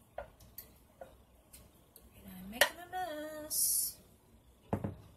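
Metal spoon clicking and tapping against a bottle and a blender jar while liquid is spooned into the jar, with one sharp clink about halfway and a heavier thump near the end as something is set down.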